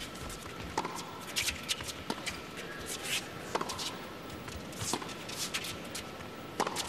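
Scattered short knocks and scuffs on an indoor tennis hard court, from players' shoes and the tennis ball, over a low arena hush.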